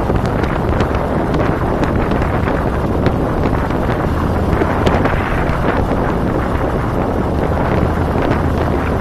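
Heavy wind buffeting the microphone of a camera mounted on a moving cruiser motorcycle, over the steady low drone of the motorcycle's engine running at cruising speed.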